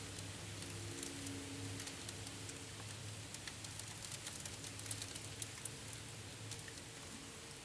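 Hail and rain falling, a steady hiss with many scattered sharp ticks of stones striking hard surfaces, thickest in the middle. A low steady hum runs underneath.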